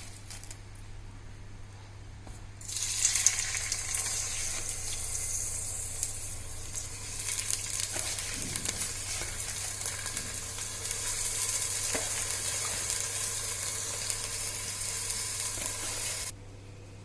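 Washed, drained jeerakasala rice sizzling in hot coconut oil in a pressure cooker as the water clinging to the grains fries off. The sizzling starts suddenly about three seconds in and cuts off shortly before the end, over a faint steady hum.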